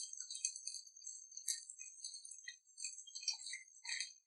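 Soya chaap pieces shallow-frying in hot oil in a kadhai, the oil sizzling faintly, with light scattered clicks and taps of a wooden slotted spatula turning the pieces over.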